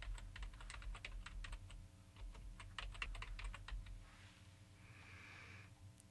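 Computer keyboard typing: a quick run of key clicks for about four seconds as a line of text is entered, then the typing stops.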